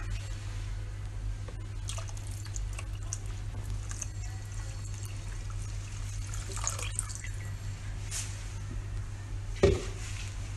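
Water pouring in a thin stream into a stainless steel pan of soup vegetables and broth, with one sharp knock near the end.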